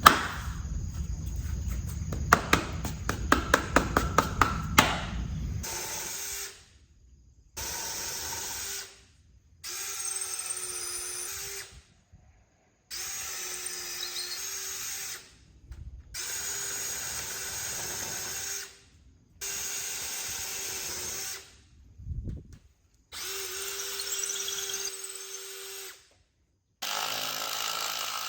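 Power drill boring into a thick reclaimed wooden post. It starts with about six seconds of rough grinding with sharp clicks, then runs in repeated bursts of two to three seconds with short pauses between them.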